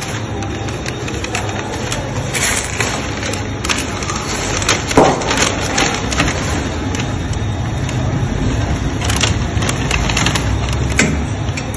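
Handling noise from threading packing film through the forming box of a pillow (flow-wrap) packing machine: scattered clicks, rustles and metal knocks, with one louder clatter about five seconds in, over a steady low machine hum.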